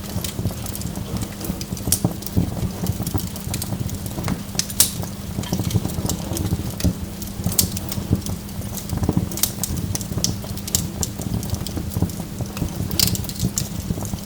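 Burning wood logs crackling: irregular sharp pops and snaps over a steady low rumble of the fire.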